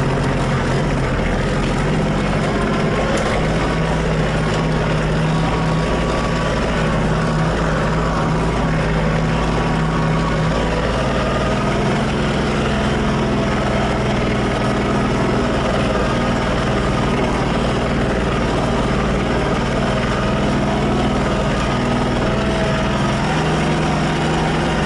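Tractor engine running steadily under way, heard from inside the cab, with a faint higher whine above the engine note. The engine note shifts a little about eleven seconds in and again near the end.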